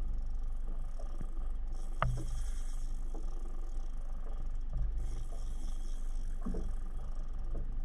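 Handling sounds from an angler working a jigging rod and reel aboard a small boat: a sharp click about two seconds in and a dull thump near five seconds, over a steady low rumble.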